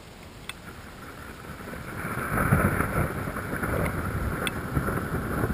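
Thunder rolling in a thunderstorm: a deep rumble that builds about two seconds in and rumbles on unevenly, with a few sharp ticks.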